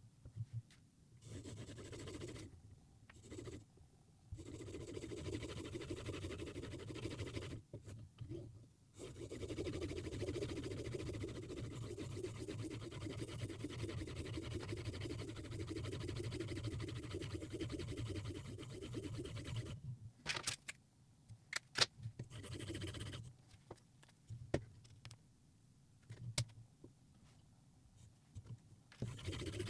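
Hapstone 4000 semi-natural sharpening stone rubbed back and forth along a Mora Bahco knife's edge on a Hapstone RS guided sharpener, a fine-grit finishing pass: a steady scraping with a few short pauses. A handful of sharp clicks come near the end.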